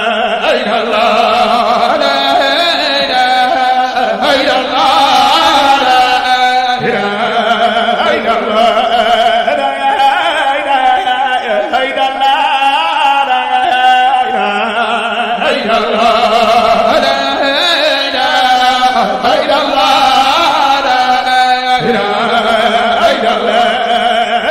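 A man's solo voice chanting a religious poem in long, held, ornamented lines that waver and glide in pitch.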